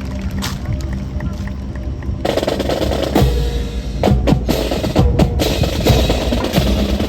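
Percussion with drum rolls and sharp wooden clacks, growing fuller about two seconds in, with a dense run of hard clacks from about four seconds in.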